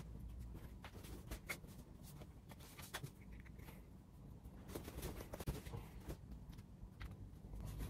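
Cotton T-shirts rustling and brushing as one is pulled off over the head and another pulled on: faint, scattered swishes of fabric.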